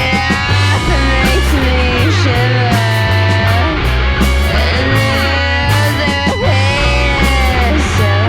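Rock band playing live: electric guitar playing bending, sliding notes over a steady bass line, with drums and cymbal hits.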